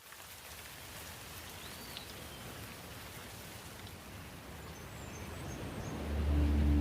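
Steady rain falling, with a short bird call about two seconds in. Near the end, low sustained music tones start to swell in over the rain.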